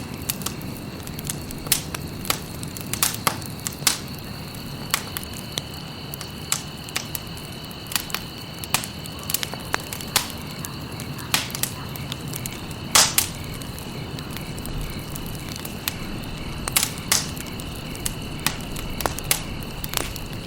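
Wood fire crackling in a fireplace: irregular sharp pops and snaps over a steady hiss, with one louder pop about two-thirds of the way through. A faint steady high tone runs underneath.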